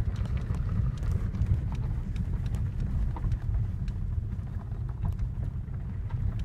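Cabin noise of a Hyundai Creta driving slowly over a rough dirt track: a steady low rumble from the engine and tyres, with scattered small knocks and clicks as the wheels cross ruts and stones.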